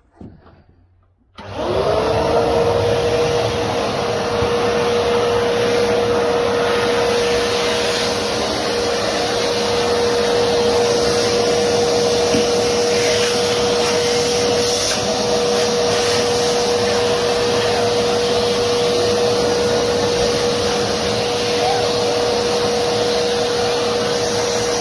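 Vacuum cleaner switched on about a second in, its motor spinning up with a quickly rising whine and then running steadily at one pitch.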